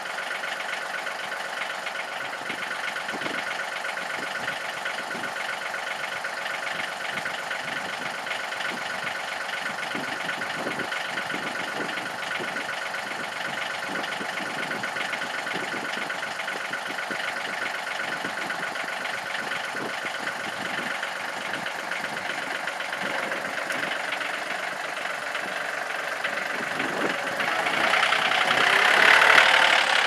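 John Deere compact loader tractor's diesel engine idling steadily, then growing louder over the last few seconds.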